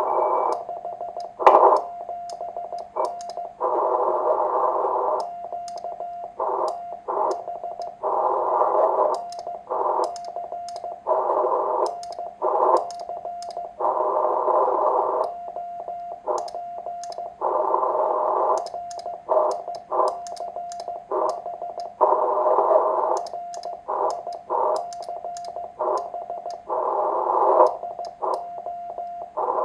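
Morse code (CW) on the 40 m band, heard through a homebuilt 1Watter transceiver's receiver and an Elecraft AF-1 audio filter. A keyed tone is heard with repeated bursts of hiss and sharp clicks: a weak station being dug out of interference (QRM) from a strong station right next to the frequency.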